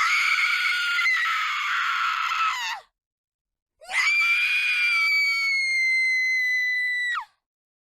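A woman screaming in terror, two long high-pitched screams with about a second's pause between them; the second is held at a steady pitch and cuts off sharply near the end.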